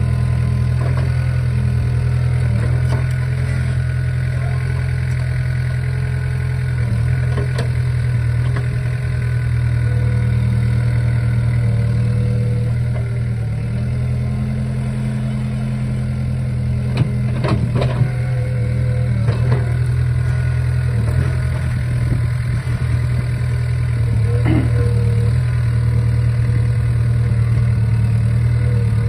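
Small crawler excavator's diesel engine running steadily under load as the machine works its boom in deep mud, with a few sharp knocks about two-thirds of the way through and again near the end.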